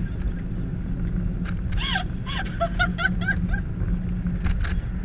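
Steady road and engine rumble inside a moving car's cabin, with a run of high-pitched laughter about two seconds in, short rising-and-falling peals lasting under two seconds.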